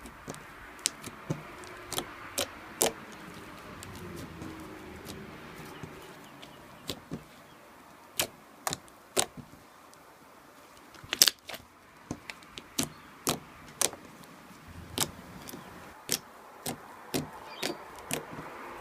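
Ice slime being squeezed and worked by hand, giving irregular sharp clicks and pops about every half second to a second, the loudest about eleven seconds in.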